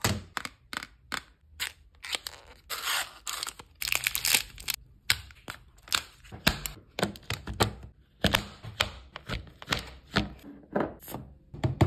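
Kitchen prep on a plastic cutting board. A foil chocolate wrapper is crinkled and torn open, then a knife chops a bar of chocolate with a run of sharp strokes.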